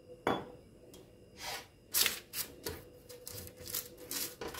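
Silicone pastry brush spreading cooking oil over the parchment paper lining a baking pan: a run of short papery swishes, one stroke after another. A single sharp click comes about a quarter second in.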